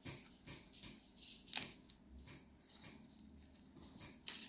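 Leafy salad greens being torn by hand and dropped into a bowl: a string of short, crisp crackles at irregular intervals, the loudest about a second and a half in.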